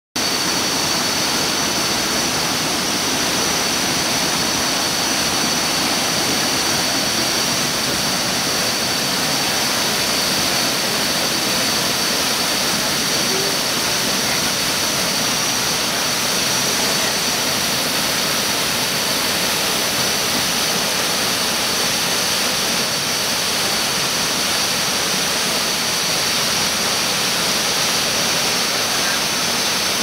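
Waterfall pouring into its plunge pool: a loud, constant rushing noise that stays level throughout. A thin, high, steady whine runs above it.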